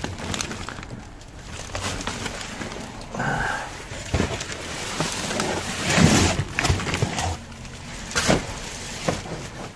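Food packages being rummaged through and shifted in a dumpster: rustling, knocks and clatter of boxes, bottles and bags.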